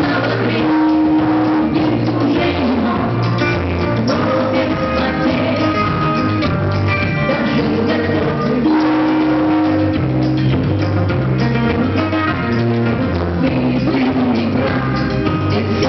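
Rock music with electric guitar, drum kit and singing, playing without a break.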